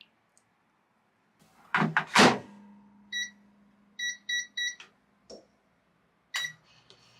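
Microwave oven door shut with a couple of knocks, then the keypad beeping as buttons are pressed: one beep, three quick beeps, then a last beep, with small clicks between.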